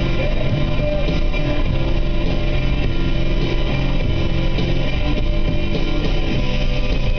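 Music with guitar playing steadily.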